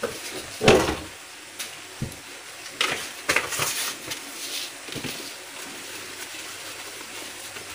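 Plastic dishes being washed by hand in a stainless steel sink: a soapy sponge scrubbing and water sloshing, with a few knocks of plastic bowls and cups. The loudest knock comes just under a second in.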